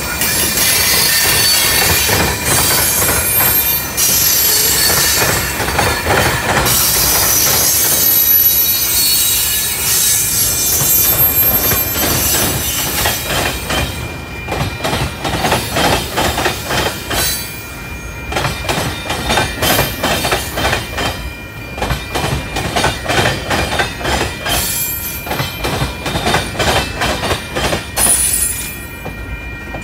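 Freight train rolling past close by, its steel wheels squealing against the rails at first, then, about halfway through, giving way to a steady rhythmic clickety-clack of wheels over the rail joints.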